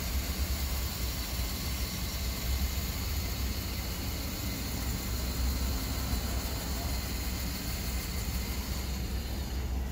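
Power awning on an Airstream travel trailer retracting under its electric motor, with newly installed gas-spring rafters: a steady mechanical run. Wind on the microphone adds a fluctuating low rumble.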